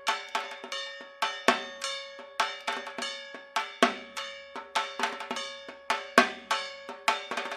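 Dhak drumming in a fast, steady Durga Puja rhythm: quick sharp strokes with a ringing tone, and a deeper stroke three times, about every two and a third seconds.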